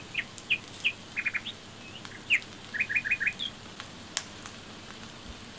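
A small bird chirping repeatedly in the background: short high chirps, some in quick runs of three or four notes. There is a single sharp click about four seconds in.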